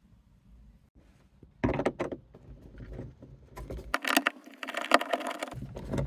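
A screwdriver working the screw of an Audi S3 8L sun visor's mounting clip at the headliner: irregular clicks, scrapes and rattles of metal and plastic, beginning about one and a half seconds in and coming thickest toward the end.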